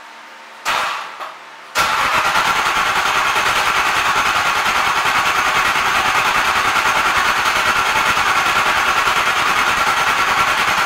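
Chevrolet 350 small-block V8 crate engine in a Jeep CJ7 firing up for the first time. A short burst of cranking or firing comes about a second in, then it catches and runs steadily and loudly with a fast, even pulse.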